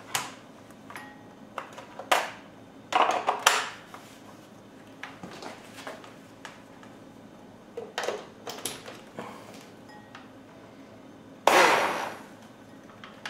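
Scattered clicks and knocks of a plastic immersion blender being handled and its blending shaft fitted to the motor body, with light clinks near the glass bowl. About a second and a half before the end comes a louder burst of noise lasting under a second.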